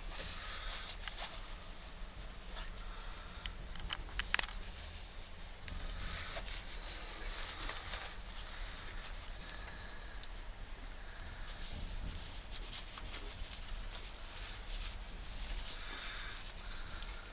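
Light rustling and rubbing handling noises with scattered small clicks, and one sharp click about four seconds in.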